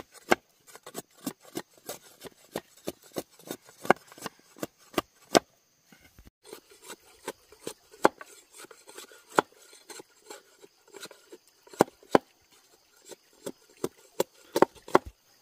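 A blade chopping into wood in quick, uneven strokes, about three strikes a second. There is a short break about six seconds in, and the chopping stops shortly before the end.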